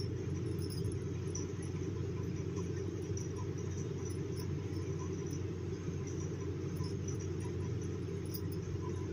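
A steady low background rumble that does not change, with no speech over it.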